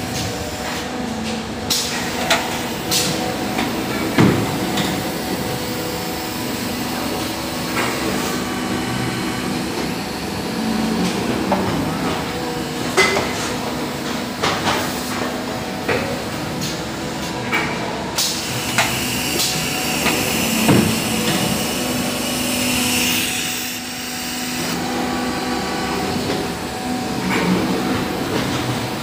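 Plastic injection moulding machine with a robotic label-placing arm, running with a steady hum and repeated metallic knocks and clanks as the mould and arm cycle. For a few seconds past the middle a hiss of compressed air sounds, from the air ejection that blows the labelled containers off the mould.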